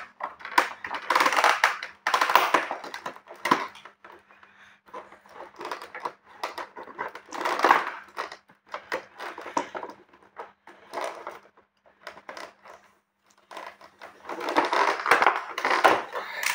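Cardboard box and plastic packaging being handled as a toy blaster is worked out of it: irregular bursts of rustling and scraping with scattered clicks, broken by short pauses.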